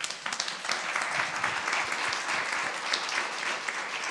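Audience applauding, starting suddenly and going on steadily.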